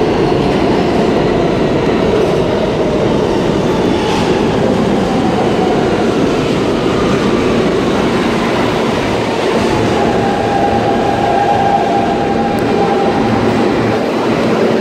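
New York City Subway R160 train with Siemens propulsion running past close along the platform, loud and steady. A whine in it slides down in pitch around the middle and then holds.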